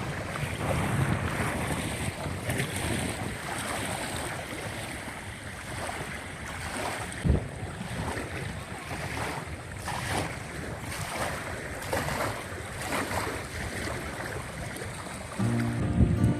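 Water washing and splashing in repeated surges, with wind buffeting the microphone and a single sharp knock about halfway through. Music comes in near the end.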